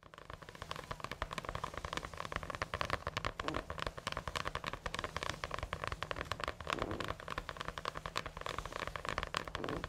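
Close-miked, dense crackling rustle of a satin robe and a cloth cap being handled and pulled onto the head. The small crackles run on continuously without a pause.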